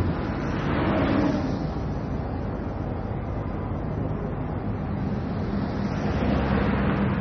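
Steady city traffic noise with a low rumble, swelling as vehicles pass about a second in and again near the end.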